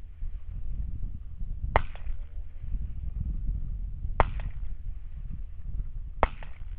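Three rifle shots about two seconds apart, each a sharp crack with a brief trailing echo, over a steady low rumble.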